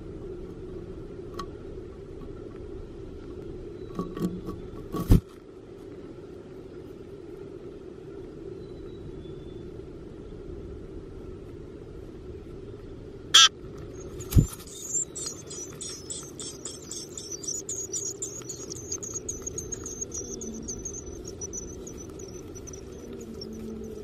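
Two sharp knocks as an adult black-capped chickadee comes into the wooden nest box, then black-capped chickadee nestlings begging to be fed: a rapid run of high, thin chirps that lasts several seconds and slowly falls in pitch, over a steady low hum.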